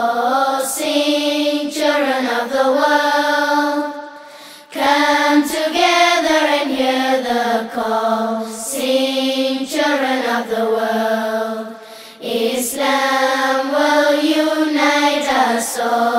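Intro theme song: a voice singing a slow, gliding chant-like melody in long phrases with no instrument heard under it. There are short breaks for breath about four seconds and about twelve seconds in.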